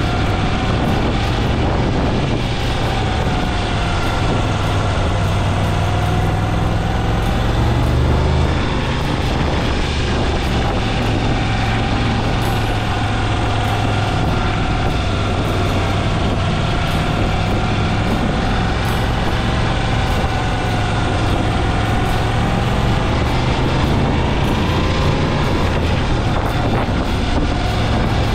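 Motorcycle engine running at a steady cruise under wind and road noise, with a droning tone whose pitch slowly rises and falls as the speed changes.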